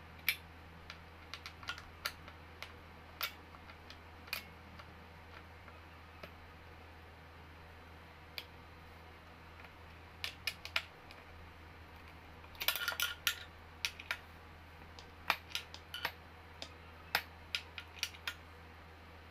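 Scattered light clicks and taps of small metal and plastic office-chair parts being handled and fitted by hand, with a quick flurry of clicks about two-thirds through, over a low steady hum.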